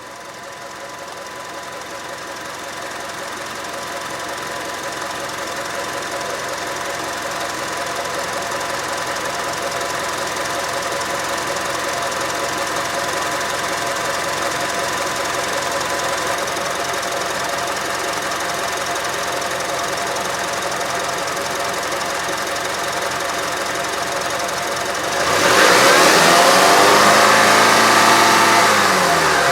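Car engine with coil-on-plug ignition running steadily, fading in at the start. About 25 seconds in it is revved: it gets louder and its pitch rises, then falls back over a few seconds.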